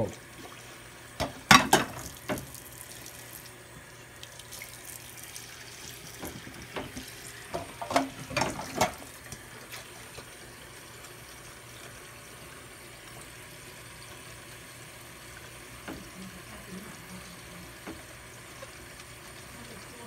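Dishes being washed by hand in a stainless steel sink: water and a sponge on plates, with sharp clinks of dishes knocking together about a second and a half in and again around eight seconds in, then quieter scrubbing.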